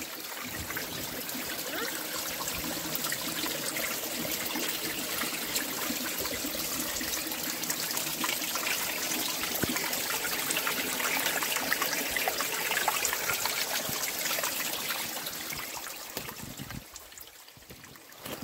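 Water trickling and running down rock beneath the ice of a frozen waterfall, heard close up through a hole chopped in the ice: a steady rush that dies down near the end.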